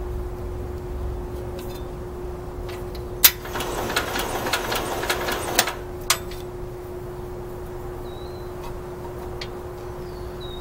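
Bolens 1050's belt-driven starter-generator cranking the engine for about two seconds without it catching: a sharp click about three seconds in, a fast rattly whir, then another click as it stops. The engine fails to fire for lack of spark.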